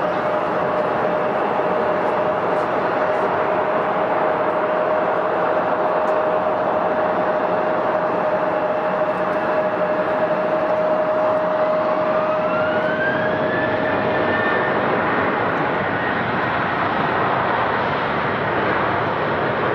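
Boeing 737-800 airliner's CFM56-7B jet engines running loud on the runway for takeoff, a steady roar with a constant tone. About twelve seconds in, a whine rises in pitch and then holds as the engines spool up.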